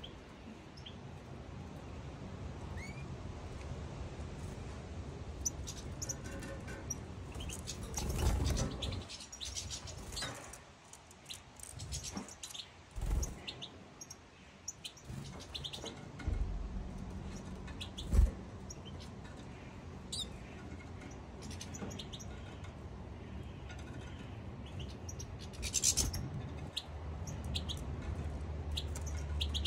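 European goldfinches calling and twittering in short, scattered chirps, with a few low thumps and some rumble between them.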